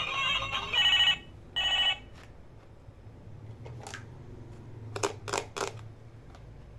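Battery-powered Hello Kitty toy telephone playing the end of an electronic tune, then two short electronic ring tones in the first two seconds. Later come a few sharp plastic clicks and taps as toys are set down on a hard surface.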